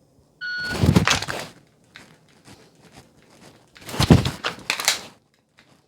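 A shot timer's start beep about half a second in, then the clatter and rustle of a pistol being drawn and dry-fired at targets: scattered small clicks and knocks, with two loud bursts of handling noise near the end.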